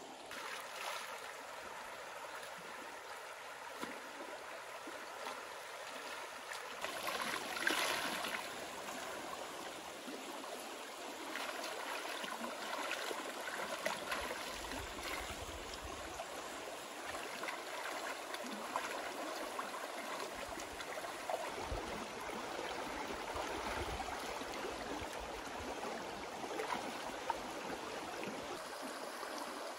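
Shallow stream flowing steadily over stones, with irregular splashing and sloshing as a person wades through the water and reaches into it with their hands; the loudest splash comes about seven seconds in.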